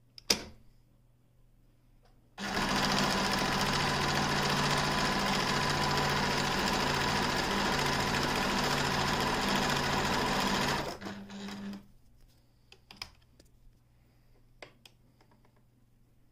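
Pfaff Creative 1469 computerized sewing machine stitching through fabric, running steadily at speed for about eight seconds, then slowing briefly before it stops. A single click comes just before it starts, and a few clicks follow after it stops.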